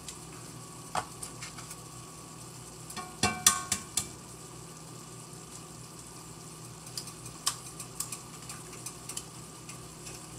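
A skillet of ground turkey, salsa and eggs sizzling steadily on the stove. A metal utensil clinks against the pan now and then, loudest in a quick run of ringing clinks about three to four seconds in, with lighter taps later.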